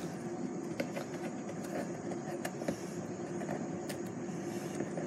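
A steady mechanical hum with a few faint scattered clicks.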